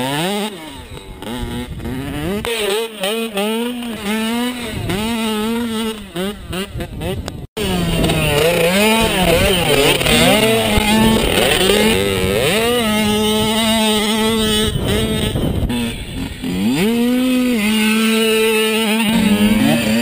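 Small dirt bike engines revving, their pitch rising and falling repeatedly as the throttle opens and closes, with a brief cut-out about seven and a half seconds in.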